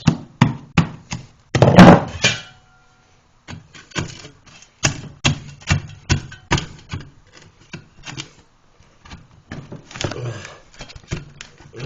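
Hands working on toilet parts: a loud clatter about two seconds in, then an irregular run of sharp knocks and clicks.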